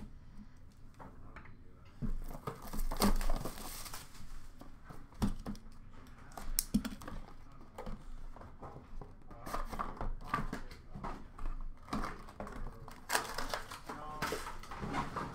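Trading-card packaging being handled: crinkling plastic wrap and sleeves, with irregular clicks and light knocks of a small card box being opened and set down. The busiest stretches come about two seconds in and again near the end.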